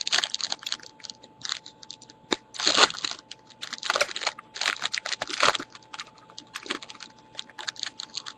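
A trading-card pack wrapper being torn open and crinkled by hand: irregular crackling and rustling in quick bursts, with short clicks between them.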